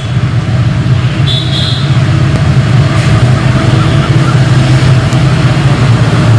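EMD WDP4 (GT46PAC) diesel-electric locomotive's two-stroke engine working hard under acceleration: a deep steady rumble that grows louder as the locomotive approaches over the first couple of seconds.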